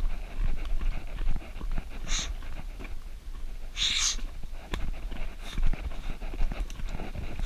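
A runner's hard breathing, with two strong breaths about two and four seconds in, over many uneven footfalls on a dirt forest trail and a steady low rumble from the moving camera.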